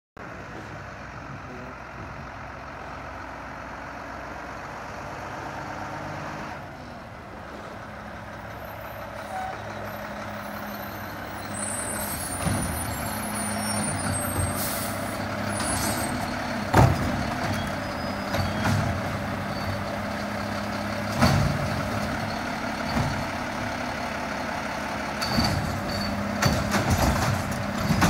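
Mack LEU garbage truck with a Bridgeport Ranger automated side-loader body: its engine runs steadily as the arm dumps a cart and the truck moves along the street. From about halfway in come several short, sharp air-brake hisses and knocks.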